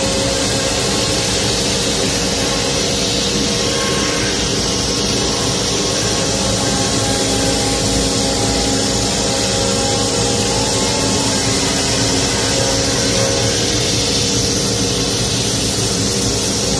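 CNC router spindle cutting a curved path through a wooden panel: a steady, even machine sound with a constant hum of fixed tones over a noisy hiss of cutting, never starting, stopping or changing.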